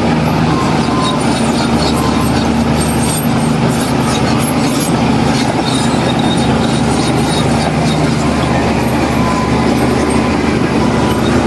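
Heavy diesel earthmoving machine engine running steadily, with scattered high-pitched clicks and squeaks over the engine note.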